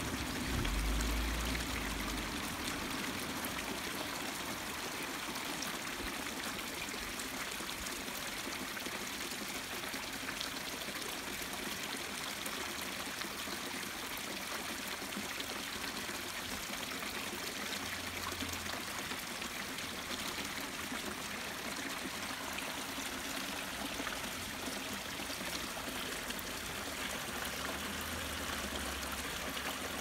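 Water spilling steadily over a low concrete weir into a concrete basin: an even rushing splash that doesn't let up. There is a brief low rumble about a second in.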